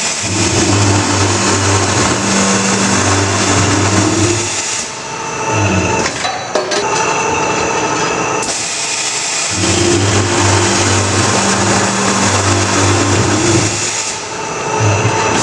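Scotchman CPO 315 HFA-CNC automatic cold saw cutting two lengths of 1-1/2 inch tubing, its 315 mm blade at 40 RPM. A steady motor hum with loud cutting noise over it breaks off about five seconds in, then starts again for the second cut and stops near the end.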